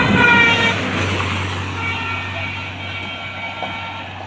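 Highway traffic: a vehicle horn sounds at the start and drops slightly in pitch as it passes and fades, then a vehicle engine hums steadily.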